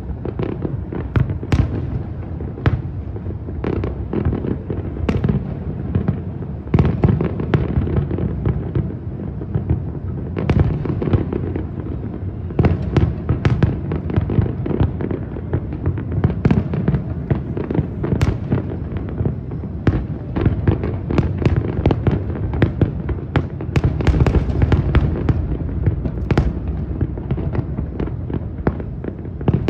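Aerial fireworks going off in quick succession: sharp cracks many times a second over continuous low booming and rumble from the shell bursts.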